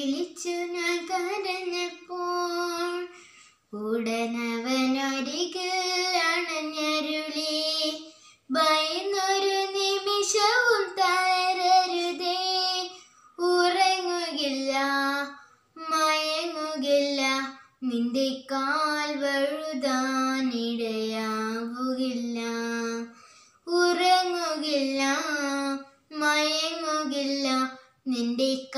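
A young girl singing a Malayalam Christian devotional song solo and unaccompanied, in phrases of a few seconds with short silent breaks between them.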